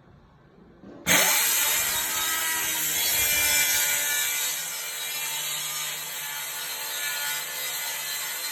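An electric power tool starts suddenly about a second in and runs steadily, cutting or working into wood.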